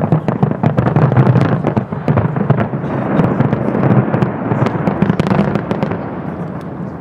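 Aerial fireworks going off in quick succession: a dense run of bangs and crackles that thins out in the last second or two.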